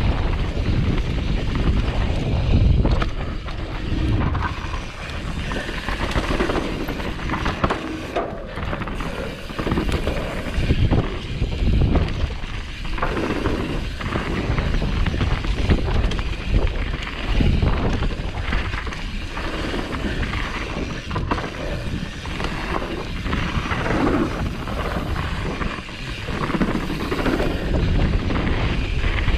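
Wind buffeting a GoPro microphone over the rattle and clatter of a downhill mountain bike riding fast over rough trail, with loud, irregular knocks throughout.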